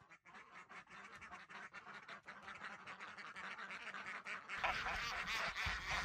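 A group of ducks quacking in quick, continuous chatter, growing louder near the end.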